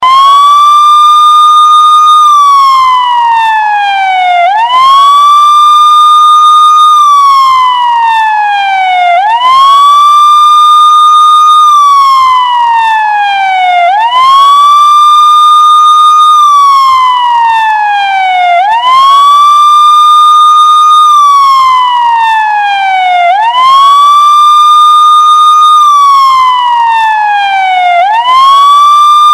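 Loud police siren wailing in a repeating cycle: the pitch rises quickly, holds high for about two seconds, then slides steadily down, and the cycle starts again about every four and a half seconds.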